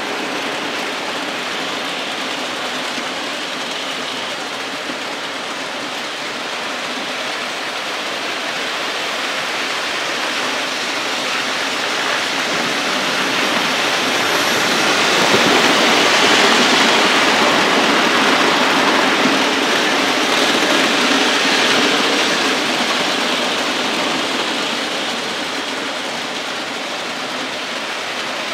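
OO gauge model trains running on the layout: a steady whirr and rumble of metal wheels on rails, swelling to its loudest about halfway through as a green model locomotive and its coaches pass close by, then easing off.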